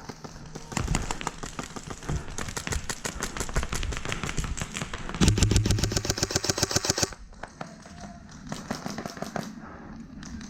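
Airsoft guns firing in rapid full-auto bursts, a fast stream of sharp clicks, loudest from about five to seven seconds in, then thinning to scattered shots.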